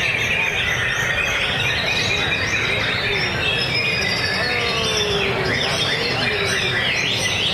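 White-rumped shamas (murai batu) singing, a dense, unbroken stream of quick, varied chirps and whistles from more than one bird at once, over a steady low background noise.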